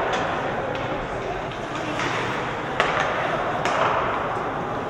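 Ice hockey play in an arena: a few sharp clacks of sticks on the puck and the boards, the loudest about three seconds in, over steady spectator chatter.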